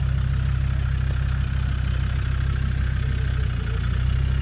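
Land Rover Discovery 2's Td5 five-cylinder turbodiesel engine running steadily as the truck crawls over rutted off-road ground.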